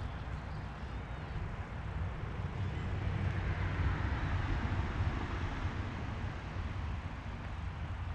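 Steady low vehicle rumble with road noise, which swells for a few seconds around the middle and then eases back.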